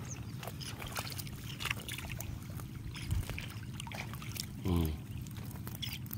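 A small engine running steadily with a low, even hum. Short, high calls from the flock of seabirds overhead are scattered through it.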